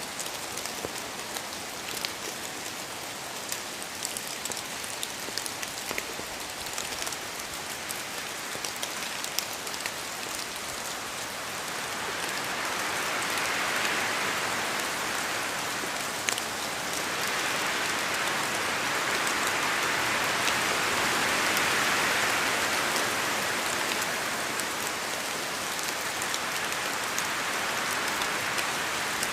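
Rain falling in a forest, a steady hiss with many separate drops pattering from the trees. The hiss swells louder twice in the second half and eases off again.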